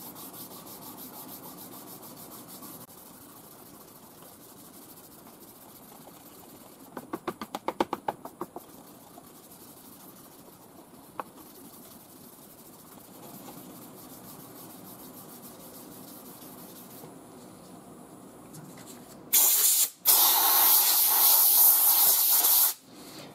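Hand dry-sanding of a paint run with an 800-grit sanding block: faint scrubbing with a quick burst of about ten strokes a third of the way in. Near the end a compressed-air blow gun hisses loudly for about three seconds, blowing off the sanding dust, with a brief break just after it starts.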